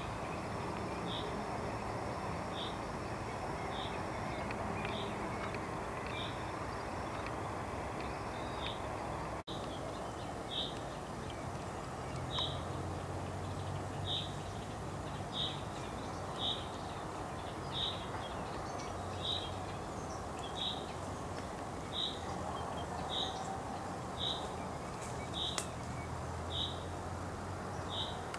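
A bird's short, high call note repeated at a steady pace, about one every second and a half, over a steady background hiss and low hum.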